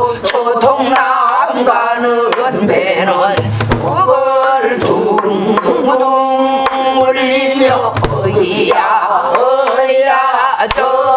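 A female pansori singer sings in a strained, wavering voice, holding a long wavering note in the middle, and accompanies herself on a buk barrel drum. Sharp stick knocks and occasional low thumps from the drum fall between her phrases.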